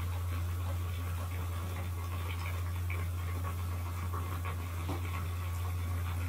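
A steady low hum, with a few faint clinks and scrapes about midway as a ladle stirs chicken pieces in a pot of simmering broth.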